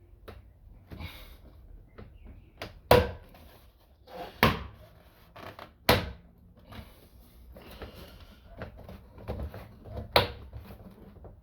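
Car's interior door trim panel being pulled off the door, its plastic retaining clips letting go with four sharp snaps.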